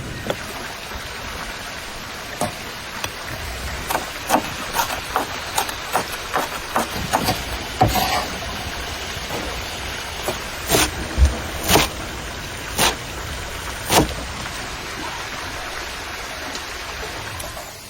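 A run of sharp, irregular clicks and knocks over a steady hiss, coming thick and fast between about four and eight seconds in, then a few louder knocks spaced a second or so apart.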